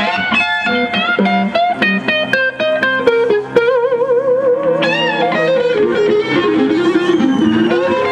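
Electric guitar solo played live with a rock band: a quick run of single notes, then about three and a half seconds in a long note held with wide vibrato, followed by slower phrases over the band.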